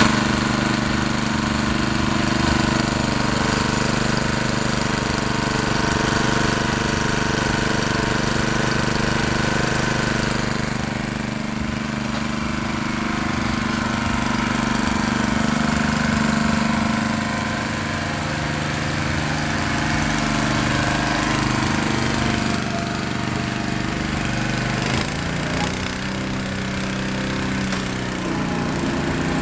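Honda GX120 single-cylinder four-stroke engine on a Lesco core aerator running steadily. Its note changes about 25 seconds in.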